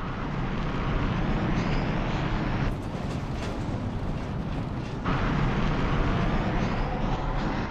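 Spacecraft engine thrust, heard as a dense rushing noise over a heavy low rumble, typical of a ship climbing through the atmosphere. The noise thins between about three and five seconds in, with some rattling, then comes back at full strength.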